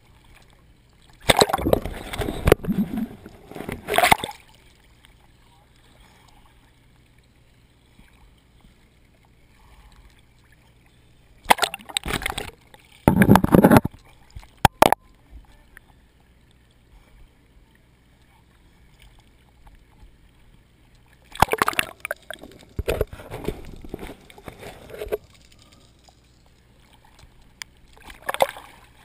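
Sea water splashing and sloshing over a waterproof GoPro camera housing bobbing at the surface. It comes in four loud bursts, the first three lasting a few seconds each and the last one short, with quiet between them.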